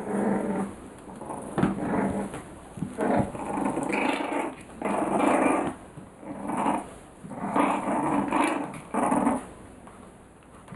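Five-week-old bulldog puppies growling while they play, in short bursts about a second apart.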